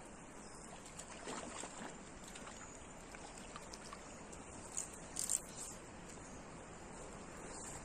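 River water running steadily, with a few short splashes about a second in and a louder pair about halfway through, from a hooked fish being played at the surface on a fly rod.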